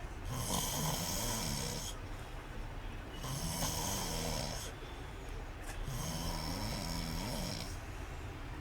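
A person snoring, in about three slow breath cycles, each a rasping, hissing breath of roughly two seconds followed by a shorter pause.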